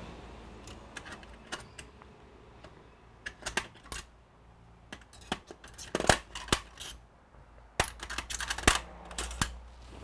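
Small tools and parts being handled by hand on a repair bench beside an opened MacBook Air: scattered sharp clicks and light taps, bunched a few seconds in, around the middle and over the last few seconds.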